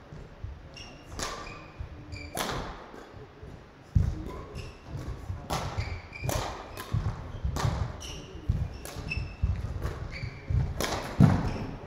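Badminton rally on an indoor court: sharp racket strikes on the shuttlecock, thudding footsteps and short shoe squeaks on the court floor, echoing in the hall.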